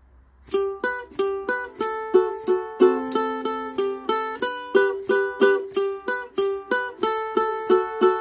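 Ukulele strummed in a steady rhythm, about three strums a second.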